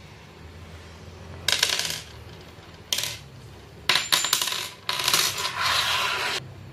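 Small metal screws clinking and rattling as they are dropped from a gloved hand onto a wooden tabletop, in several short bursts and then a longer rattle near the end.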